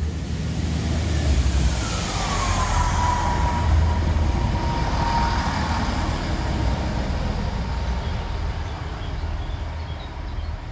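Class 165 diesel multiple unit passing at low speed, its diesel engine running with a heavy low rumble. A high whine slides down in pitch about two seconds in, then holds one steady note.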